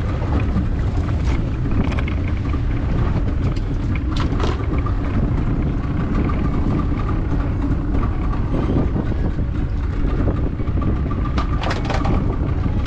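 Small fishing boat's motor running steadily under way, with a few short knocks from handling on deck.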